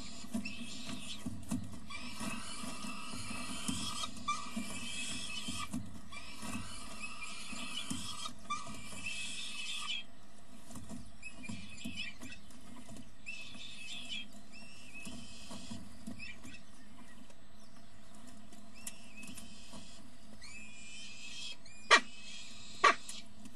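Peregrine falcon chicks cheeping and squealing as they beg while being fed in the nest box. Two short, sharp, loud calls near the end.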